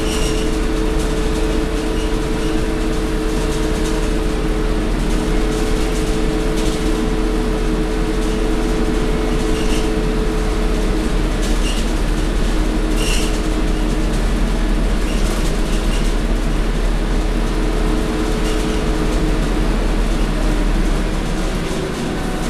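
Interior noise of a Scania K230UB city bus under way: its Scania DC9 five-cylinder diesel runs steadily with a low rumble and a steady hum, and a few short rattles. It drops a little in level near the end.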